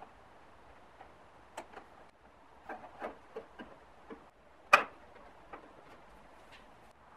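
Small plastic clicks and taps as a rocker switch and its wire connectors are handled, then one sharp snap about five seconds in as the switch is pressed home into the cutout of a plastic junction box.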